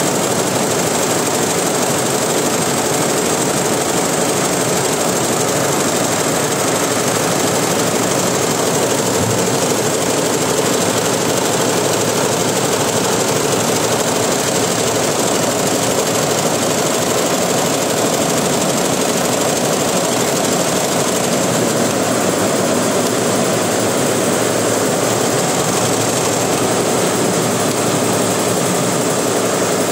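BABA multi-head computerized embroidery machine running steadily, its needle stitching rapidly as the cording attachment couches metallic silver cord onto fabric.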